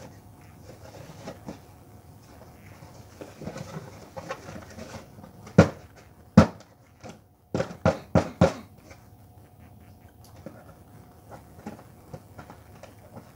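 Small objects being handled and set down by hand, with rustling and a cluster of sharp knocks and clatters about halfway through.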